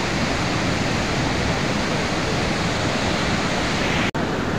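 Muddy flash-flood torrent rushing past, a steady, dense wash of water noise with a brief dropout near the end.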